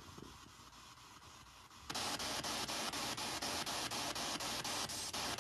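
Spirit box radio scanner sweeping through stations: a steady static hiss chopped by about six clicks a second, jumping much louder about two seconds in.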